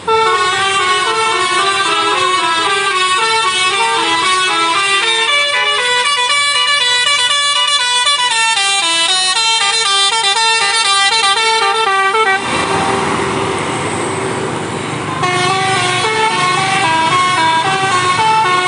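Tour bus's basuri telolet horn, a multi-tone musical air horn, playing a quick stepped melody. About twelve seconds in the tune breaks off for roughly three seconds of rushing vehicle noise, then starts again.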